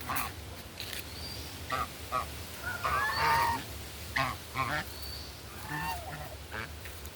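Domestic fowl calling in a string of short, separate calls, the loudest about three seconds in, with a few brief thin high chirps between them.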